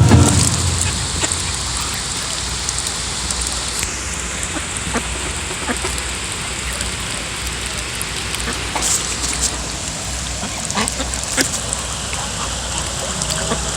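Ducks dabbling at the water's surface, bills filter-feeding: a steady wet shlorping with many small irregular splashy clicks, rather like rain pattering.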